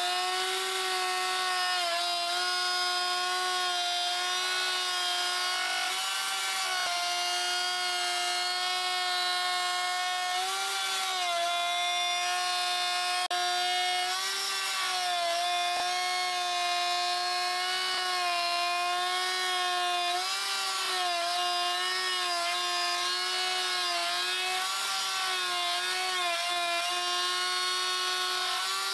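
Table-mounted router with a 1/2-inch bottom-bearing bit running, a steady high whine that sags briefly in pitch again and again as the bit bites into the edge of a Baltic birch plywood ring, trimming it flush to a template.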